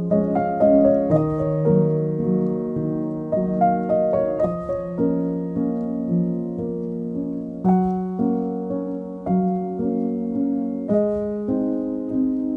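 Background piano music: a gentle tune of struck notes and chords, a new note or chord about every half second to second.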